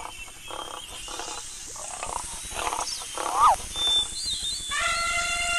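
Lion growling and roaring in short repeated calls, a stock animal sound effect. Near the end a different animal gives one long, high, slightly falling call.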